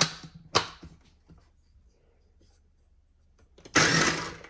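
Two light knocks, then near the end a KitchenAid food processor pulsed once for under a second, its blade chopping scallions, garlic and cashews.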